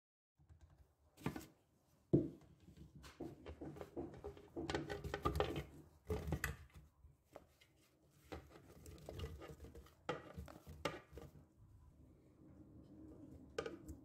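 Peeled mandarin segments and lemon slices tipped from a bowl into a plastic blender jug: a run of irregular soft knocks and thuds of fruit and bowl against the jar, the sharpest knock about two seconds in.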